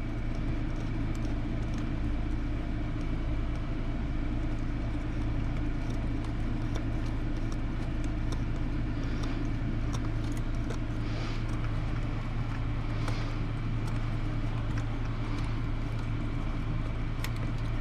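A steady low hum runs throughout, with faint scattered clicks and light taps of hand tools as a part is worked loose from an RC truck's chassis.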